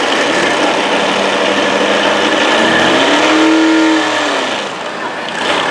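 Modified Ford pulling truck's engine running loud, revved up and back down once about three seconds in.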